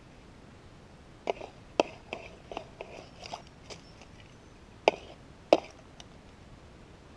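Dug soil and small stones in a handheld plastic scoop being shaken and handled, giving a string of sharp clicks, knocks and short rattles, the loudest two about five seconds in. The prospector is working through the scoopful of dirt to isolate a gold nugget.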